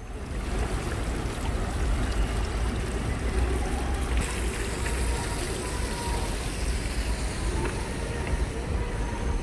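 Water flowing across and spilling over the edges of a black stone water-table fountain onto pebbles, a steady trickling wash. A constant low rumble runs underneath.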